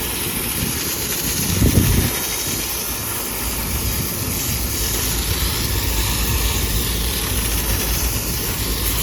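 Outdoor air-conditioning condensing unit running, its fan blowing a steady rush of air, with a brief low thump about a second and a half in. The unit is running at high head pressure, 480 psi, because its condenser coil is plugged with dirt.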